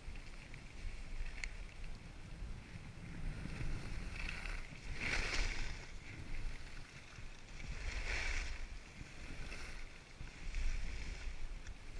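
Alpine skis hissing over snow on a downhill run, swelling into two louder swooshes on turns about five and eight seconds in, with a low wind rumble on the microphone.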